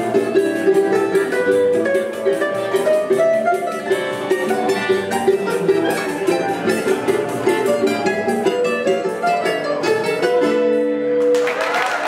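Choro ensemble of acoustic guitars, cavaquinhos and a bandolim playing a brisk, densely plucked piece that closes on held final notes. Applause breaks out suddenly near the end.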